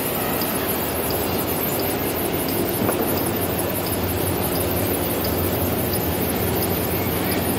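Scale model conveyor belts running steadily, loose material pouring off the head pulley into a hopper, with a faint light ticking a little over twice a second.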